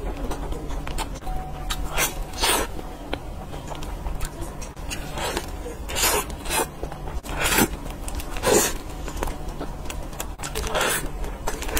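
Close-miked eating sounds from someone eating a soft cream-filled matcha crepe roll: chewing and mouth smacking in irregular bursts, over a low steady hum.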